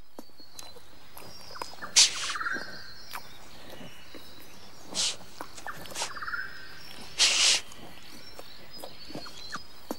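Animal sounds over a steady outdoor background: a few short, sharp, breathy bursts about two, five and seven seconds in, and two brief buzzy calls that fall in pitch, about two and six seconds in.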